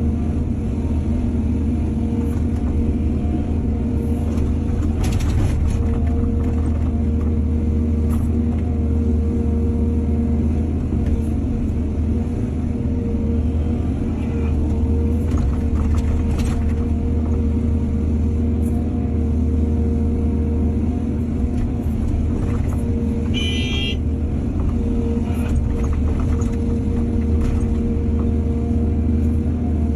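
Diesel excavator engine running steadily with a deep drone, a few short metallic knocks scattered through, and a brief high squeal about three-quarters of the way in.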